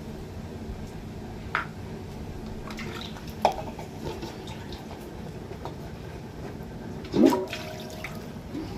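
Milk squirting and splashing into a stainless steel pail as a cow is milked by hand: a steady liquid hiss with a few faint clicks. About seven seconds in comes a brief, louder sound that slides up in pitch.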